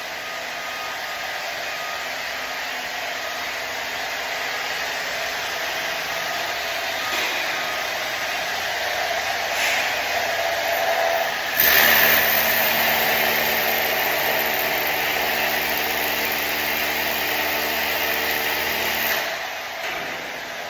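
Cordless DeWalt rotary hammer drilling up into a concrete ceiling: a loud, steady hammering run starts suddenly about twelve seconds in and stops about seven seconds later. A steadier, quieter mechanical noise runs before it.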